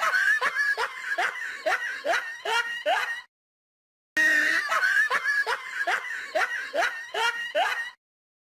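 Laughter-like voice: a quick run of short calls, each rising in pitch, about three a second. The run is heard twice the same way with a short silent gap between.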